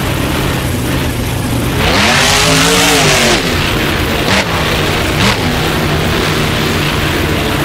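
Monster truck engine running, revving up and back down about two seconds in, with two short sharp knocks a little later.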